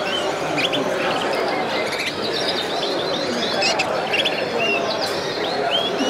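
Red factor canaries chirping in a cage: many short chirps and quick upward-sweeping calls, overlapping and scattered all through, over steady background noise.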